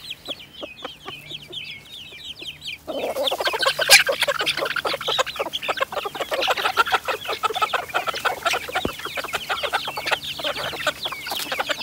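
A flock of chickens clucking and calling as they crowd in on scattered food. Sparse calls at first, then from about three seconds in a dense, rapid chatter of many birds at once, with one sudden sharp sound about four seconds in.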